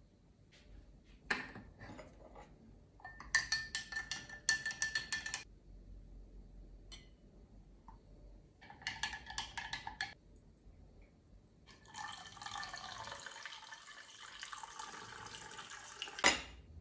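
Coffee poured into a glass of milk: two spells of rapid glassy clinking and rattling, then about four seconds of steady pouring from a glass Chemex carafe, ending in a sharp clink of glass.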